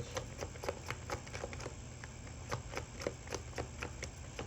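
Tarot cards being handled on a table: light, irregular clicks and taps, a few a second.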